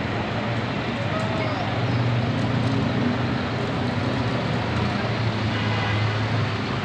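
Steady engine hum with road traffic noise, and faint voices in the background.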